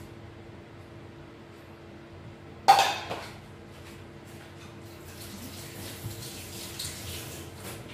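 Kitchenware clattering: one sharp clank of a dish or pan set down hard a little after two and a half seconds in, ringing briefly. A faint hiss of running water and small clinks follow in the second half.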